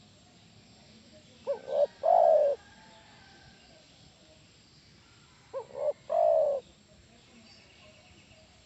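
Spotted dove cooing: two calls about four seconds apart, each made of two quick short notes followed by a longer note.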